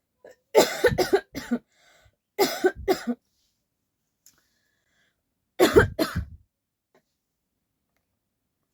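A person coughing on purpose in three quick bouts of several coughs each: about a second in, near three seconds, and around six seconds. The coughs are staged, not from illness.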